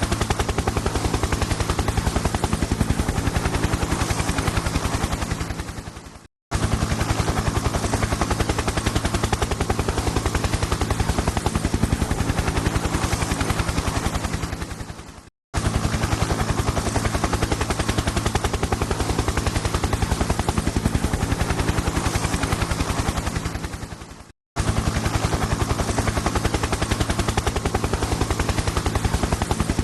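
Helicopter rotor chopping in a rapid, even beat over a steady engine hum. Three times it fades away to a brief silence and then starts again abruptly at full level.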